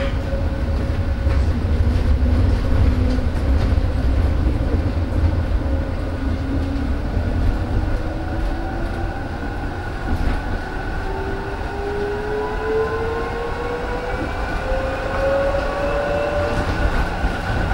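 Interior of an Esslingen GT4 articulated metre-gauge tram under way: a steady rumble of wheels on rail. From about six seconds in, a whine climbs steadily in pitch as the tram picks up speed.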